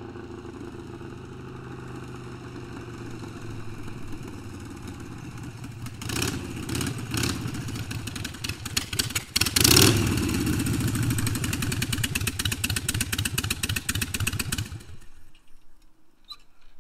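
Harley-Davidson Sportster 1200 V-twin on a home-built reverse trike approaching and growing louder, with a loud rev as it pulls up close about ten seconds in. It then runs with a rapid, even pulse before the engine cuts off suddenly near the end.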